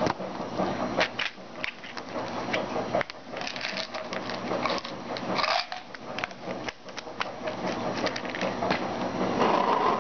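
Plastic vitamin bottle being handled and opened on a stone countertop: a run of irregular clicks and knocks from the cap and bottle, with a couple of brief scraping noises a few seconds in.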